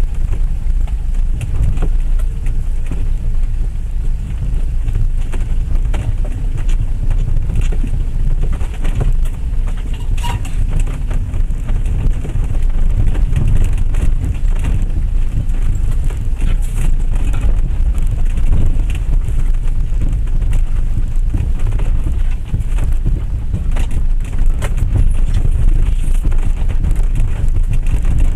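Land Rover Freelander 1 TD4 driving slowly along a rough, rutted green lane, heard from inside the vehicle. A steady low rumble runs throughout, broken by scattered knocks and rattles as the tyres and body go over stones and bumps.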